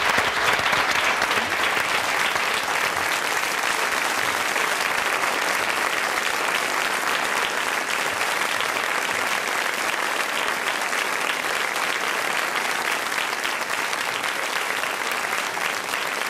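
Audience applauding steadily, a dense, continuous clapping that eases slightly toward the end.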